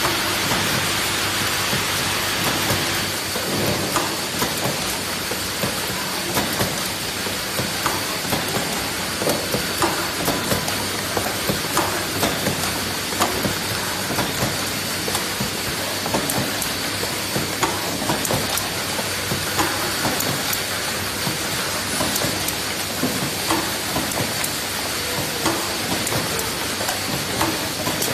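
Automatic vial-tray cartoning machine running: a steady noisy hiss with a faint high tone, and a busy run of irregular clicks and knocks from its moving mechanism.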